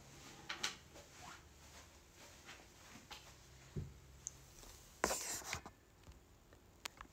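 Faint rustling and handling noises of a person moving about, with a soft knock about four seconds in and a louder rustle about a second later.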